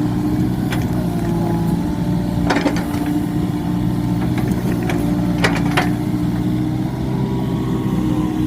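Komatsu PC45 mini excavator's diesel engine running steadily under work, with a few sharp knocks about two and a half and five and a half seconds in.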